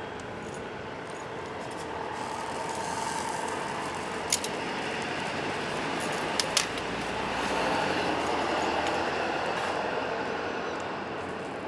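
Wood fire burning in a Winnerwell Nomad View stainless steel tent stove, under a steady rushing noise that swells and eases over several seconds. A few sharp clicks come about four and six seconds in.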